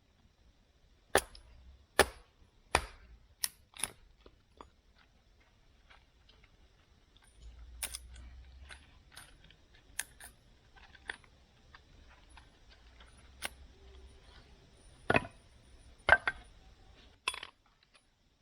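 A series of sharp knocks: five in the first four seconds, about two every second and a half, then scattered faint ticks, and three louder knocks near the end.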